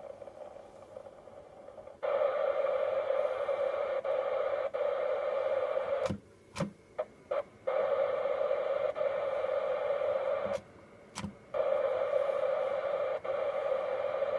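Yaesu all-mode transceiver's speaker giving a steady FM receiver hiss while stepping through FM memory channels. The hiss switches on abruptly about two seconds in, drops out with a run of sharp clicks around six seconds, comes back, and cuts out briefly again near eleven seconds.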